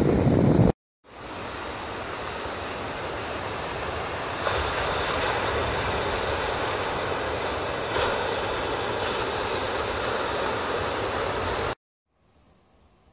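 Wind buffeting the microphone briefly, then after a short dropout a steady wash of ocean surf that swells slightly twice and cuts off suddenly, leaving only a faint hiss near the end.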